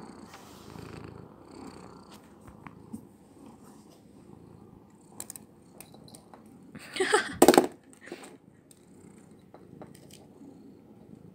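Himalayan cat purring steadily close to the microphone. A brief loud scuffing noise comes about seven seconds in.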